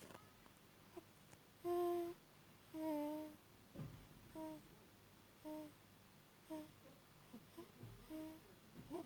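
One- to two-month-old baby's sleep noises: short hum-like sounds at a steady pitch, about one a second, which the parent calls snoring.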